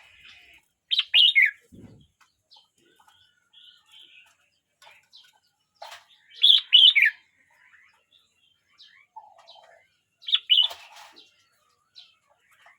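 A year-old red-whiskered bulbul singing: three short, loud phrases of a few quick notes each, about four to five seconds apart, with soft chirps between.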